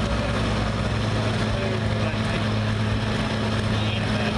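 Farm tractor engine running steadily under heavy load, holding an even pitch as it pulls a weight-transfer sled down a tractor-pull track.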